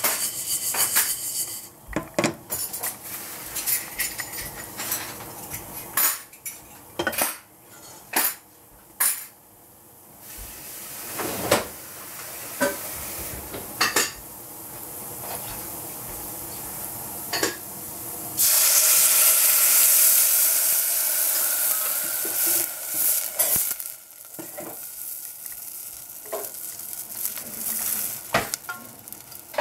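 Pearl couscous toasting in a stainless steel saucepan over a gas flame, with scattered clinks and scrapes as the pan is shaken and stirred. About two-thirds of the way in, a sudden loud sizzling hiss as water hits the hot pan, fading over several seconds, followed by more clinks.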